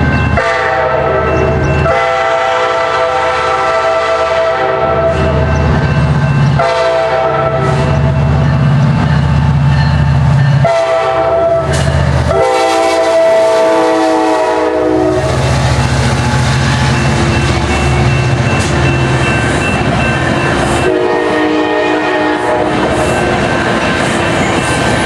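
Amtrak Cascades F59PHI diesel locomotive passing close by with a Sounder commuter train, blowing its horn in a series of long blasts, a pause, then another long blast near the end. Under the horn the diesel engine runs steadily, and the wheels rattle over the rails as the coaches go by.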